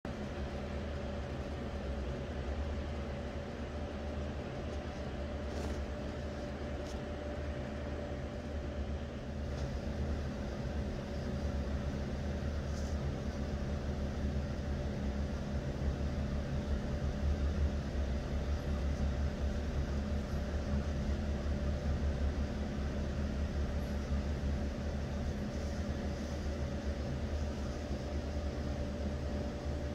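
A steady low mechanical hum with a faint constant whine over it, unchanging throughout; a few faint ticks in the first half.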